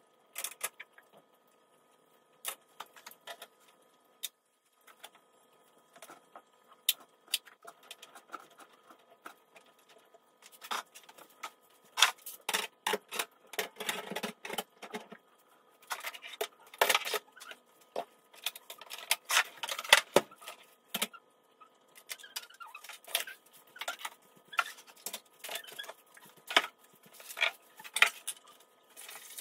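Irregular clinks, knocks and rustles of items being handled and moved on a kitchen counter during cleaning, sparse at first and busier from about ten seconds in. A faint steady hum sits underneath.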